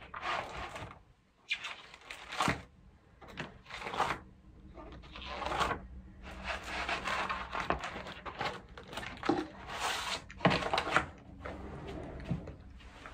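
Plastic sheet-protector pages of a ring binder being turned and handled by hand: a series of rustles and crinkles, one every second or two.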